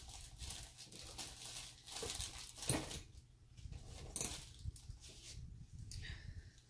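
Irregular bursts of rustling and crinkling as papers and plastic packaging are rummaged through.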